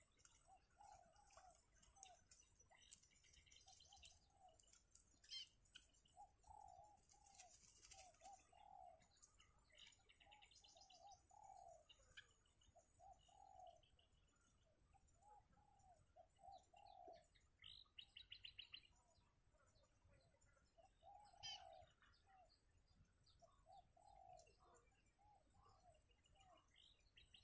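Faint bird calls: a soft arched note repeated in short groups of two or three every second or two, with scattered higher chirps, over a steady high insect trill.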